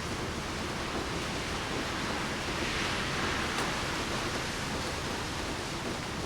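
Heavy rain falling steadily, a dense even hiss that swells a little in the middle.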